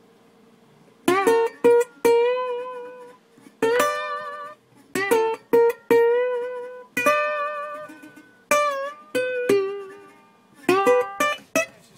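Solo guitar music on the soundtrack: single plucked notes and short phrases with bent, wavering pitch, each note ringing and fading, starting about a second in.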